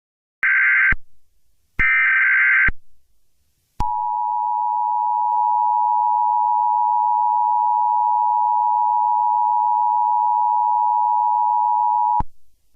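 Emergency Alert System alert opening: two short bursts of digital SAME header data, then the steady two-tone EAS attention signal held for about eight seconds before it cuts off abruptly.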